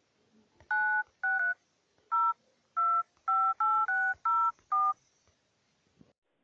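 Phone keypad touch tones (DTMF) from an Android dialer: ten short two-pitch beeps in quick, slightly uneven succession as a ten-digit phone number is keyed in.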